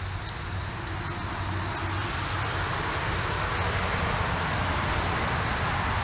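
A steady engine drone with a rushing noise, slowly growing louder, over a constant high insect buzz.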